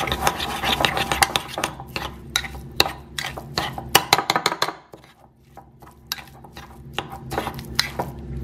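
Metal spoon stirring a thick mixture of grated cheese and breadcrumbs in a ceramic bowl, scraping and clinking against the bowl in quick strokes, with a short lull about five seconds in.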